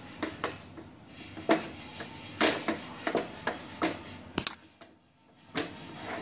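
A spatula scraping and knocking against a kadhai as thick peanut barfi paste is stirred and pressed, in irregular strokes about once or twice a second, with about a second of silence a little after the middle. The mixture is being cooked down until it leaves the sides of the pan.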